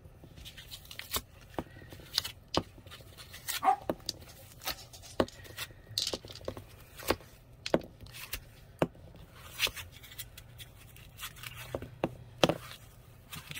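Small glass gel polish bottles clicking and knocking against each other and the table as they are lifted out of their box and set down: a long run of sharp clicks at irregular intervals, about one or two a second.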